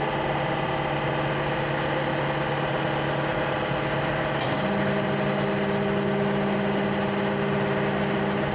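Motorcycle tyre-changing machine's electric motor running, turning the turntable while the old tyre is worked off the rim with a lever: a steady mechanical hum, with a second, higher tone joining about halfway through.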